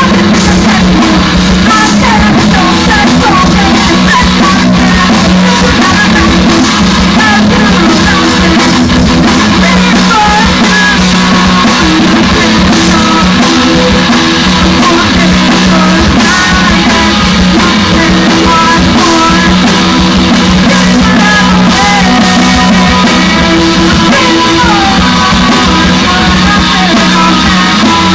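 Rock band playing a song with guitars, drums and a singer, recorded with poor sound: loud and overloaded, at an almost unchanging level.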